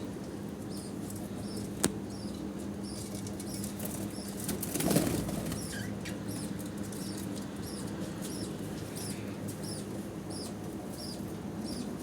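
Budgerigars chirping, short high cheeps repeating every half second or so, with a flurry of wing flapping about five seconds in and a sharp click near two seconds. A steady low hum runs underneath.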